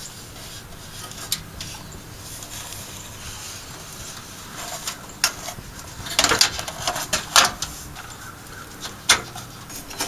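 Motherboard being fitted into a metal PC case: scattered light clicks and knocks as the board is shifted onto the standoffs, sparse at first and more frequent in the second half.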